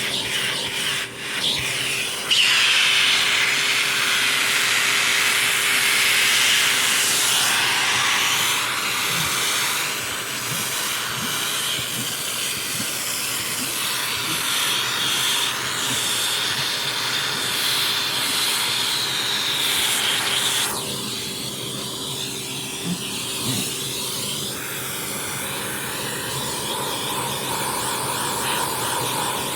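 Vacuum cleaner running: a steady motor hum under a rushing hiss of air that shifts in pitch and strength several times as it is worked.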